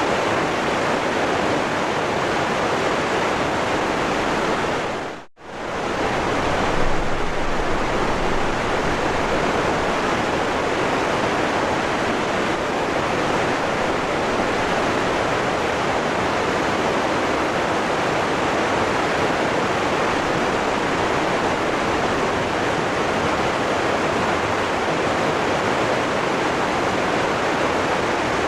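Waterfall rushing steadily. About five seconds in, it fades out for an instant and comes straight back, as at a join in the recording.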